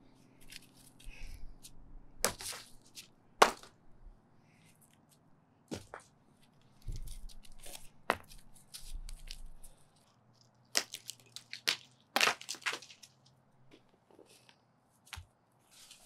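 Concrete sidewalk being broken up by hand: scattered sharp cracks and scrapes of steel tools and broken concrete, the loudest crack about three and a half seconds in, with rougher scraping and knocking of concrete chunks in between.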